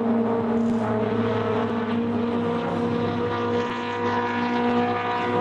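Honda Civic EK9 Type R's 1.6-litre VTEC four-cylinder engine running hard on a gymkhana course, heard from a distance as a fairly steady engine note.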